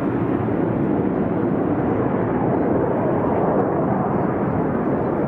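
Steady jet engine noise from a formation of BAE Hawk jet trainers flying a display with smoke trails on, each driven by a single turbofan.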